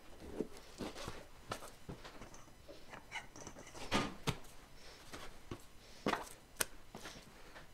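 Butcher's knife and raw beef steaks on a plastic cutting board: scattered light knocks and clicks as the blade trims the meat and the steaks are moved, with the sharpest knocks about four and six seconds in.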